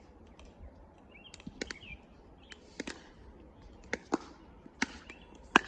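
Ball being hit back and forth in a rally: about six sharp hits and bounces at uneven spacing, coming closer together, the loudest near the end.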